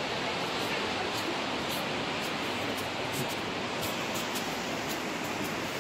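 Steady rushing of water from an artificial waterfall.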